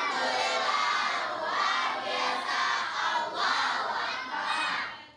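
A crowd of children shouting and cheering together, many voices at once, swelling and ebbing before dying away near the end.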